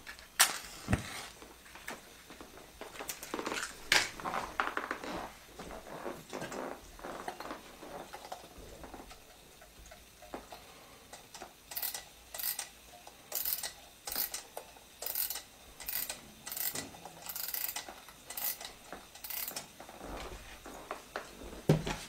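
A match struck on its box in the first few seconds, then a wind-up mechanical alarm clock being wound by hand: about ten short ratcheting bursts, one for each twist of the winding key, in the second half.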